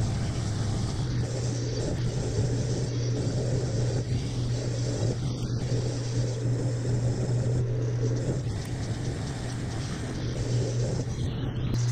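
Metal lathe running with a steady hum while its tool turns a small metal part, a rough cutting noise over the motor.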